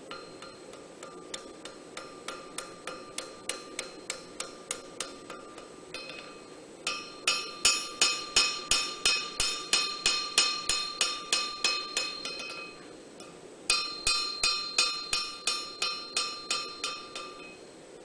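Hand-hammer blows on a red-hot knife blade on an anvil, each strike leaving a ringing tone. The blows come in three steady runs of about three a second, the second and third louder than the first. The smith is using a lighter, smaller-faced hammer for the final shaping of the blade.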